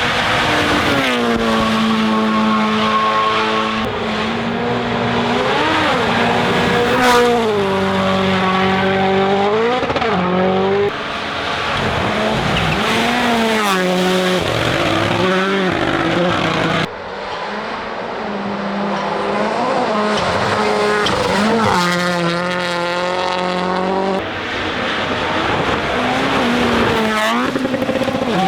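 Rally1 cars driven flat out, their turbocharged four-cylinder engines revving up and down through quick gear changes. The sound comes in several short clips that cut off suddenly about every six or seven seconds.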